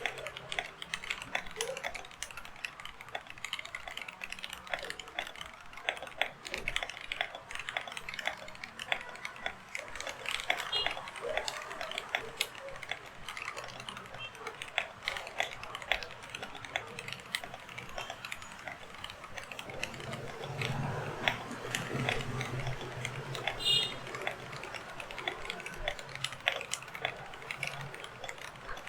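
Fast, continuous typing on a Keydous NJ81 mechanical keyboard with Kailh Box Red linear switches on a brass plate: a dense, uneven patter of key clicks and bottoming-out clacks.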